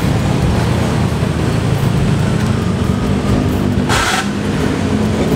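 Minibus (angkot) engine running at idle through its aftermarket twin-pipe exhaust, just after being started; a short burst of hiss about four seconds in.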